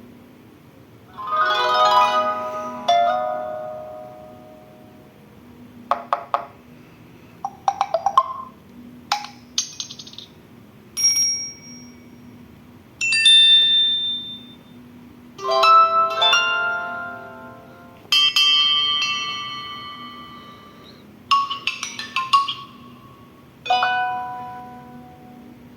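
Samsung Galaxy Young 2 stock ringtone and alert tones previewed one after another: about ten short chimes and jingles, each a second or two long, with brief gaps between them.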